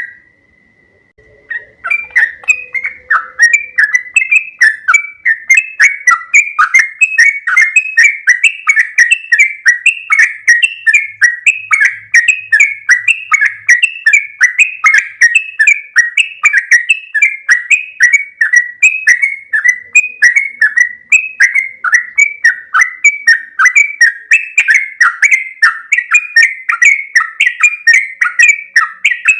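Sooty-headed bulbul (trucuk) singing loudly: an unbroken run of quick, repeated chirping notes, about three a second, after a short pause at the start.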